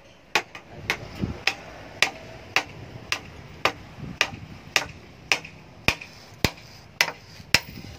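Hand hammer striking a hot steel spade blade on a steel post anvil, a steady run of sharp metallic blows at about two a second, forging the blade to shape.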